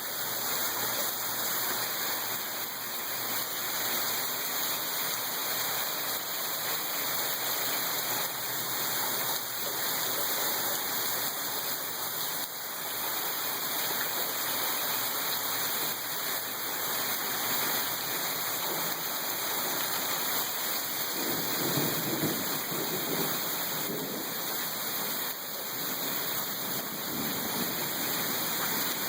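Hard rain falling steadily, an even hiss of rain. About three quarters of the way through there is a brief low rumble.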